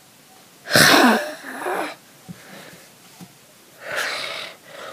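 A person's voice making raspy, breathy noises: a loud burst about a second in, a shorter weaker one right after, and another near four seconds in. These are play sounds voiced for toy lion cubs.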